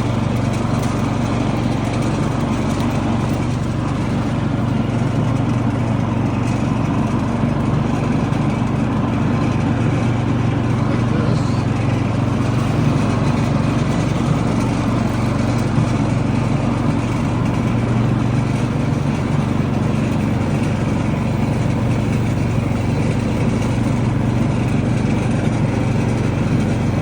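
Cub Cadet riding lawn mower's engine running steadily at a constant pitch while mowing.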